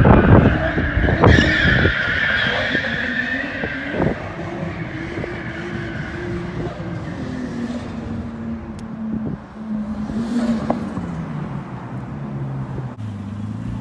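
Nissan S14 with a swapped-in RB straight-six being driven hard in a drift. The engine is revved and the tyres squeal, loudest in the first couple of seconds. The engine note then falls steadily and drops lower near the end as the car comes off the throttle.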